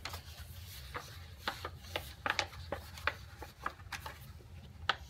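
A string of light, irregular clicks and rubbing sounds, about a dozen spread unevenly, like handling noise, over a steady low hum.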